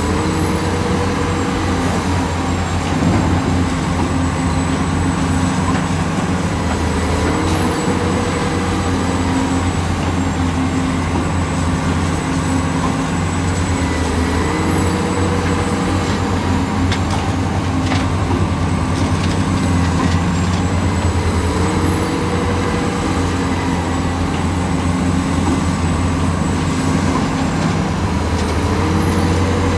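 Excavator's diesel engine running steadily through its work cycle, with a short rising tone in the hydraulics that comes back about every seven seconds.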